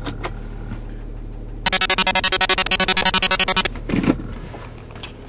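Rapid electronic beeping from the car, about twelve even beeps a second, starting about one and a half seconds in and stopping abruptly about two seconds later.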